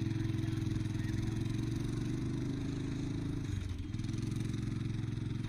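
Engine of a paraglider tow machine running steadily under load, with a brief dip in pitch about three and a half seconds in before it steadies again.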